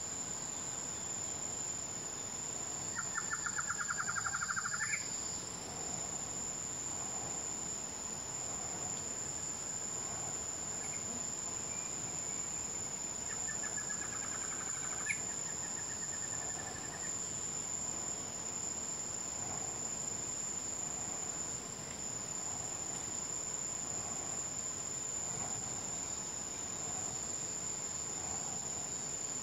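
Insects sounding steadily on one high tone throughout, with a bird's fast trill of repeated notes twice, about three seconds in and again about thirteen seconds in, each ending in an upward flick.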